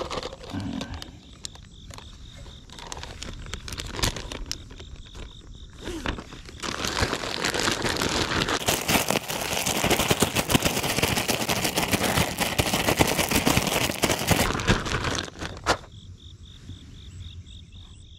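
A zip-top plastic bag of oatmeal, crushed pineapple and horse sweet feed squeezed and kneaded by hand, the plastic and wet grain crinkling and crackling, loudest for about eight seconds in the middle. Near the end the crackling stops and insects chirp steadily with a regular pulse.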